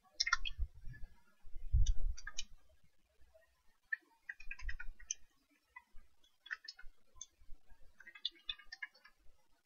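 Computer keyboard typing: irregular keystroke clicks in small clusters with short pauses, some with a dull low thud.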